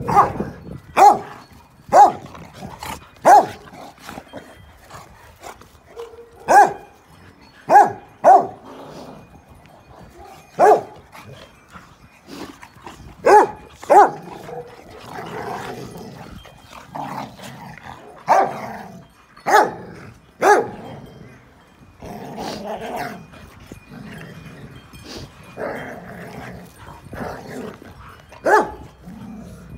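Dogs play-fighting, an English bulldog and two standard schnauzers: about a dozen sharp barks, roughly one a second at first and then in bunches, with growling between them.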